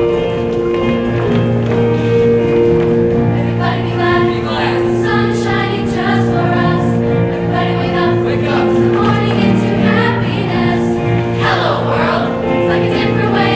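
Junior high show choir singing over a steady, sustained instrumental accompaniment; the voices come in about four seconds in.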